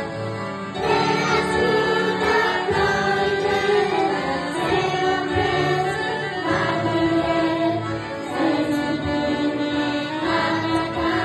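A group of young children singing a worship song together, accompanied by an acoustic guitar.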